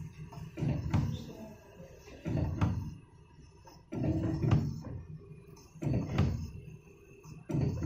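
Desktop soldering robot's axis motors running in short bursts, five times about every 1.7 seconds, as the iron head moves from one solder joint to the next, with a click in each move.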